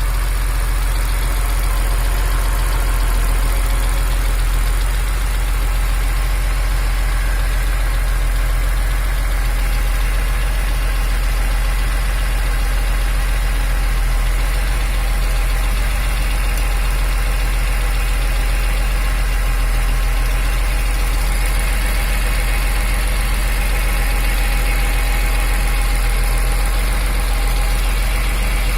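BMW E46 M3's S54 straight-six engine idling steadily, with a small metallic tick/knock in its running that marks an engine fault.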